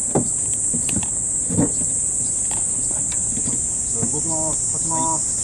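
Steady high-pitched insect chorus, with two dull knocks in the first two seconds.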